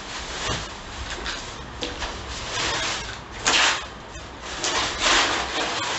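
White protective packing wrap rustling and crinkling as it is pulled off a computer monitor, with two louder surges of rustle about three and a half seconds in and around five seconds in.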